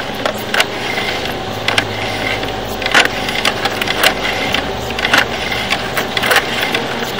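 Drain inspection camera rig at work: irregular sharp clicks and knocks, about one to two a second, over a steady hum with faint steady tones.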